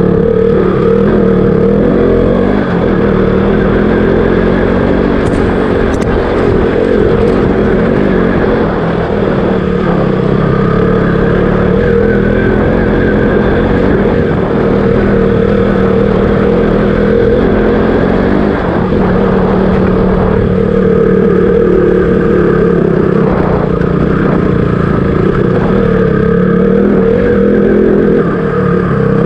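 KTM RC200 motorcycle's single-cylinder four-stroke engine running continuously while under way, its pitch shifting up and down with throttle and gear changes.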